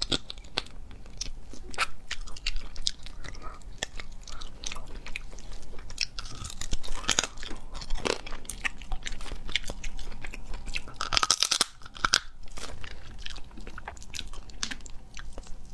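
Close-miked crunching and chewing of spicy cooked crab claws, with repeated short cracks of shell being broken and bitten; a denser, louder run of cracking comes about eleven seconds in.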